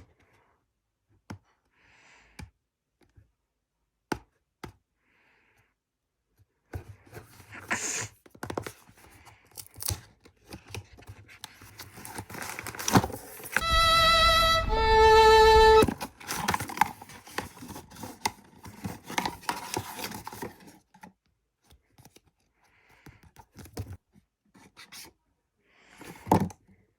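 Taps, clicks and rustling of a small blind-box package being handled and opened. About halfway through come two loud steady tones, one after the other, lasting about two seconds together.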